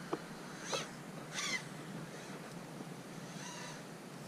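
An animal calls three times, short high calls that glide down in pitch. The first two come close together and the third comes later.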